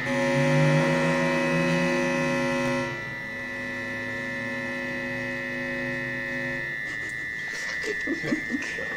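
Electronic tones from a homemade sound-sculpture circuit, made of wired metal parts and a small brass capsule. A steady high whine runs throughout, over a chord of lower steady tones that drops in level about three seconds in and stops near seven seconds. A few short crackles come near the end.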